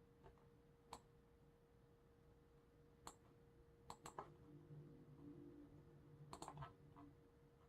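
Faint, scattered clicks of a computer mouse and keyboard at a desk: a single click about a second in, then short clusters of two or three clicks with pauses between, over a steady faint hum.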